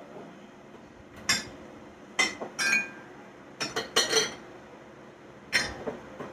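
Ceramic mugs and glassware clinking and knocking against each other and the shelf as they are moved about in a kitchen cupboard. There are about half a dozen sharp clinks, some with a short ring, with a cluster of them about four seconds in.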